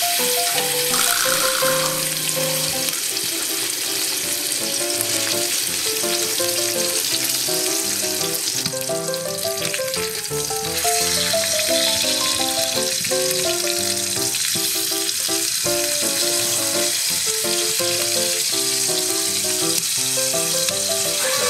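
Thick steaks searing in a hot iron skillet on a wood stove, with a steady, dense sizzle. The sizzle thins out about nine seconds in as the steak is turned with tongs, then comes back a little louder. Background music plays throughout.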